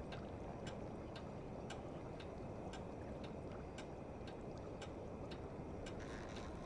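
Pendulum clock ticking evenly, about two ticks a second, over a low steady rumble.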